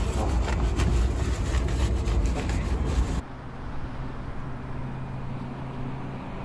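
Low rumbling noise with scattered clicks, typical of wind and handling on a handheld phone's microphone. It cuts off abruptly about three seconds in and gives way to a quieter steady low hum.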